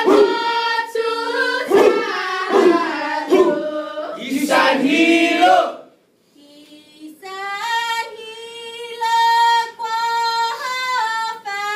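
Women's voices chanting a Chamorro chant a cappella, in short rising and falling phrases. About six seconds in they break off, then the chant resumes in long held notes that step from pitch to pitch.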